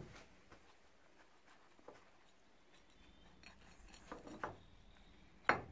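Light metallic clinks and scraping as a gloved hand works the rusty threaded screw out of a cast-iron vice, with one sharp metal clink near the end.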